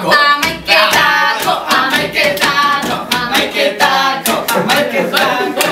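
Several young voices singing or chanting together, with sharp hand claps throughout.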